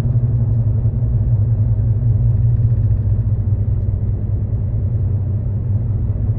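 Steady low rumble of a car driving, road and engine noise as heard from inside the moving car.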